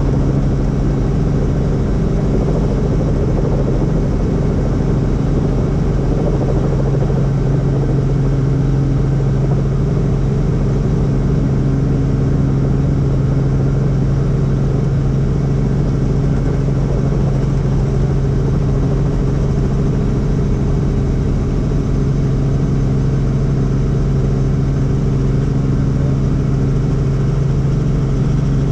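Helicopter running steadily: a constant drone with one strong low tone and several steadier, fainter tones above it, unchanging throughout.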